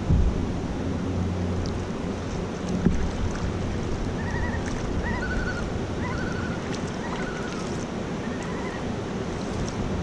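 A canoe moving slowly on calm water: water washing along the hull, with wind on the microphone and a couple of dull knocks, at the start and near 3 s. A bird calls in a series of short chirps in the middle.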